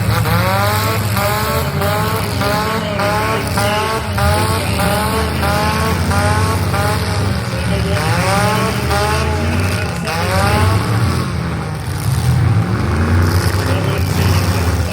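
Demolition derby car engines running loud and rough, one revving up again and again in quick bursts, about two a second, as the cars spin their wheels and ram each other.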